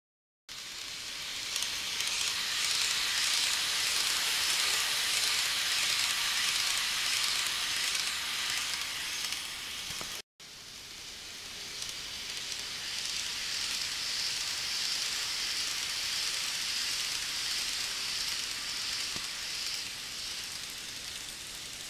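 N-scale model trains running on the layout's track: a steady hissing whir of small wheels and motors, swelling and easing slightly. It breaks off for a moment about ten seconds in and resumes.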